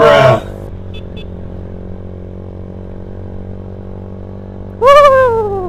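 Suzuki Satria FU motorcycle running steadily at cruising speed, heard from the rider's seat. About five seconds in, a loud tone slides down in pitch for under a second.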